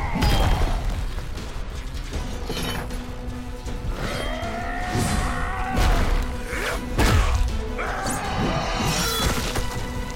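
Fight-scene soundtrack of an animated film: dramatic score music under a string of heavy impacts and crashes, several of them landing close together in the middle of the passage.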